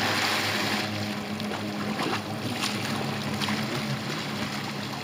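Jet ski engine running at speed, a steady low hum under the hiss of spray and water.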